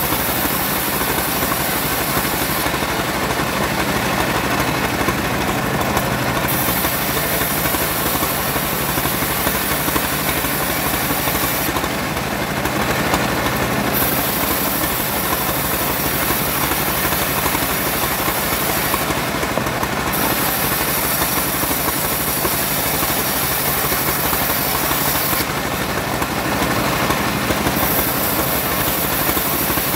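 Homemade bandsaw running steadily on its engine, sawing sengon wood. A high hiss rides over the drone and drops away four times, once for a few seconds, then briefly three more times.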